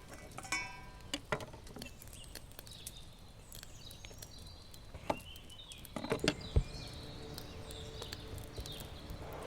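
Scattered clicks and knocks of objects being handled, with a brief ringing clink about half a second in and a cluster of louder knocks around six seconds. Birds chirp in the background.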